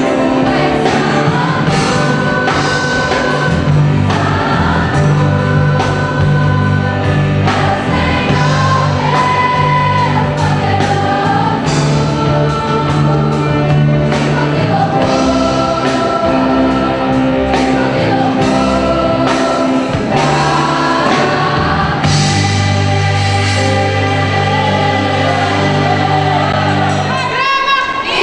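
Gospel music: a choir singing over a band with bass and drums, a steady beat throughout, ending just before speech begins.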